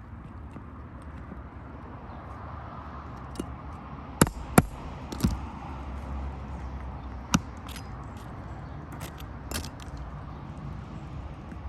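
A metal hand tool prying nails out from under asphalt roof shingles: a few sharp clicks and knocks, the loudest two close together about four seconds in and another about seven seconds in, over a steady low outdoor rumble.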